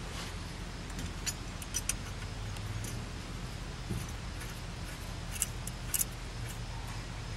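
A handful of light metallic clicks and clinks as a metal anti-rattle clip is worked by hand onto a disc brake caliper and pad, over a steady low hum.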